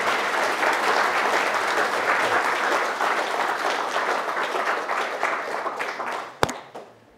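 Audience applauding. The clapping is steady, then thins out and dies away near the end. A single sharp knock comes just before it fades.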